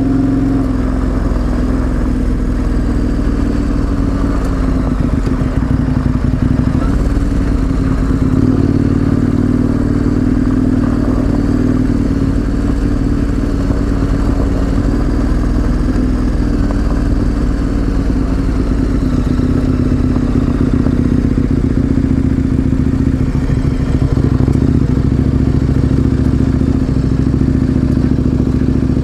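Twin-cylinder adventure motorcycle engine running at a steady cruise with an unchanging engine note, with some clatter mixed in.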